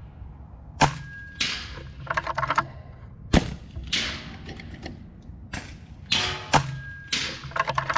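PCP air rifles firing, several shots in a row: sharp cracks with a hissing rush of air, and quick clicking between them as an action is cycled.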